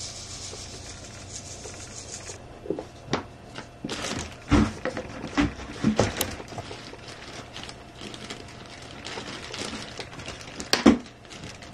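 Irregular knocks, taps and rubbing of objects being handled, with a faint hiss in the first couple of seconds.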